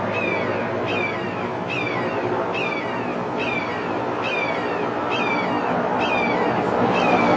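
Red-shouldered hawk calling a steady series of falling-pitch calls, about one a second, nine in all.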